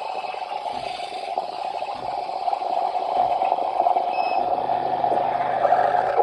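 Smeg bean-to-cup coffee machine running with a loud, steady mechanical noise, a low hum joining about halfway through, then cutting off abruptly at the end.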